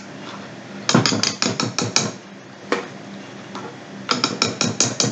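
Wire whisk beating batter and knocking against the side of a stainless steel mixing bowl: runs of quick metallic clinks, about five or six a second. The first run stops about two seconds in, and a faster run starts near the end.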